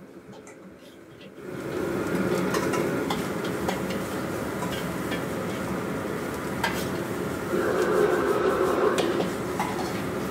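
Minced meat starts sizzling as it hits the hot oil in a wok about a second and a half in, then keeps frying steadily while a metal ladle scrapes and taps against the wok as it is stirred.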